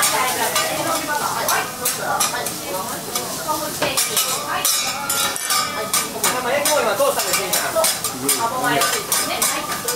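Metal spatulas scraping and clicking on a hot teppan griddle, many sharp strokes in irregular succession, over a steady sizzle of frying food.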